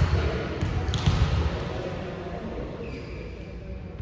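Volleyball match play on an indoor court: two sharp knocks, about half a second and a second in, over a low rumble that fades toward the end.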